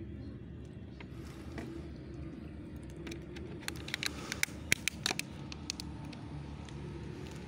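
Cats crunching dry cat food: a quick, irregular run of sharp crackling clicks about four to five seconds in, over a steady low hum.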